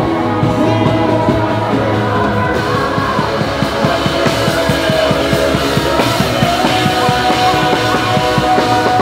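Worship song in a rock style played by a band with singing and a steady beat.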